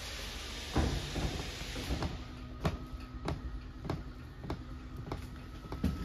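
Footsteps walking at an even pace, a short knock about every 0.6 seconds, over a faint steady hum.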